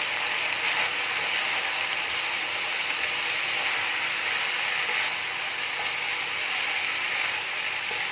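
Macaroni, shredded chicken and vegetables sizzling steadily in a non-stick frying pan while a slotted spatula stirs and scrapes through them.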